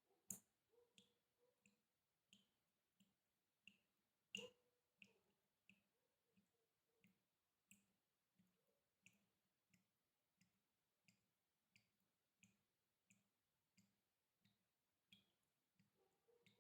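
Water dripping in a faint, steady rhythm, about three drops every two seconds, each a short plink. Two drops are louder, one just after the start and one about four seconds in.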